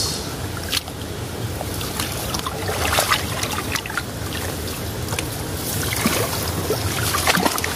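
Hands groping and sloshing through shallow muddy water, feeling in the mud for freshwater mussels, with irregular small splashes and trickling.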